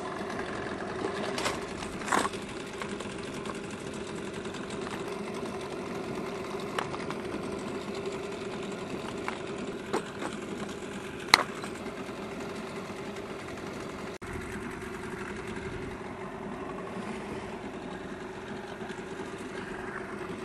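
Small pull-start outboard motor idling with a steady hum. A few clicks and knocks of fishing tackle being handled close by, the sharpest about eleven seconds in.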